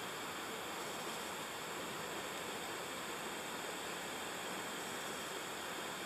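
Steady, even hiss of stream water running through rocks, with no other sound standing out.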